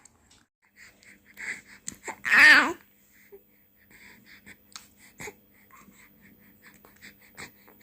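Three-month-old baby making short breathy puffs and small mouth clicks, with one loud, wavering coo about two and a half seconds in.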